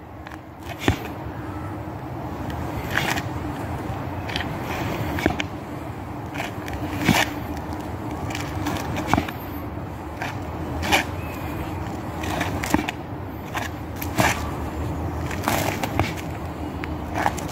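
Sharp stamps and scuffs of shoes on asphalt from a martial artist's footwork in the Bajiquan form Jin Gang Ba Shi, a hit every second or two, over a steady background hum.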